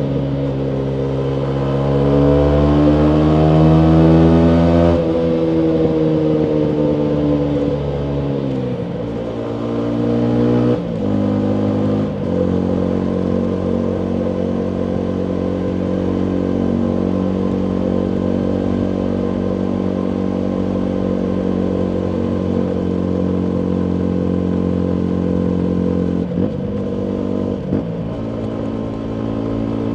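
Yamaha MT125's single-cylinder engine through a full Akrapovic exhaust, revs climbing under acceleration for about five seconds, then dropping away. After a short rev jump the engine holds a long steady note, broken twice briefly near the end.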